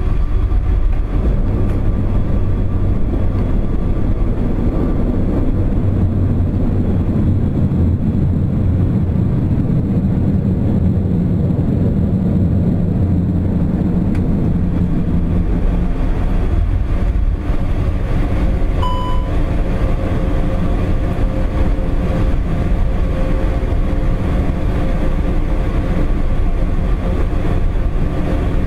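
Cockpit noise of an Airbus A400M Atlas rolling along a runway: a steady low rumble from its four turboprop engines and the runway, heaviest in the first half and easing after about 16 seconds. A short electronic beep sounds about 19 seconds in.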